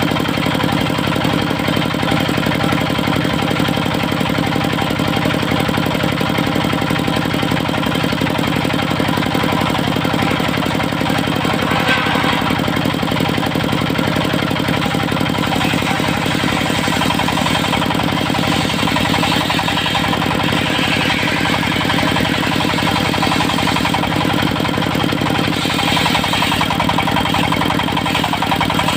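Engine of a portable circular sawmill running steadily, with a few brief, brighter, higher-pitched stretches on top: about twelve seconds in, again a few seconds later, and near the end.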